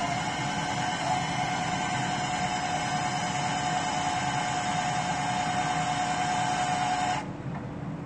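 Crane-mounted grapple saw running with a steady high whine as its chainsaw bar works on the trunk, over the low rumble of the crane truck's engine. The saw cuts off abruptly about seven seconds in, leaving the engine rumble.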